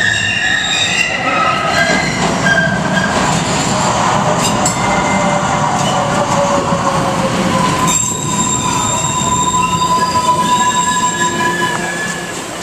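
MBTA Green Line light-rail train pulling into an underground station, its steel wheels squealing on the rails over a loud rumble. Several high squeal tones come and go and shift in pitch, and a single steady squeal holds from about two-thirds of the way in. Everything quiets near the end as the train comes to a stop.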